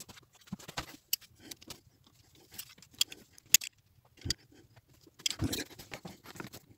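Irregular small clicks, taps and light metallic jingles of hands working in the engine bay, pushing thin rubber vacuum hoses onto the warm-up sensor, with a busier run of handling noise about five and a half seconds in.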